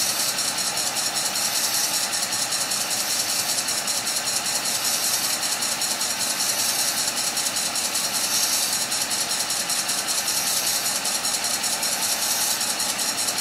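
Wood lathe running while a diamond-point tool cuts fine grooves into the face of a spinning hard maple blank: a steady high hiss of the cut over the machine's running noise, swelling a few times as each line is cut.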